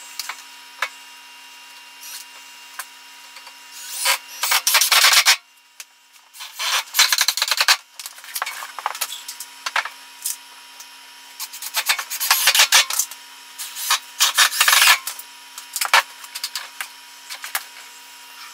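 Wooden 2x4 boards scraping and rubbing as they are worked into place, in several irregular bursts of a few seconds each with light knocks and clicks.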